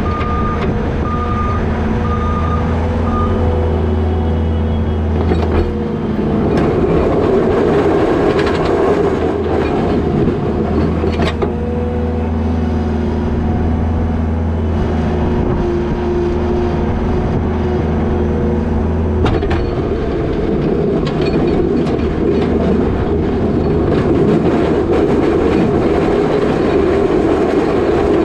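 New Holland L220 skid steer's diesel engine running steadily as it plows wet snow, with a backup alarm beeping a few times at the start. The sound turns louder and rougher about six seconds in and again near the end as the machine works.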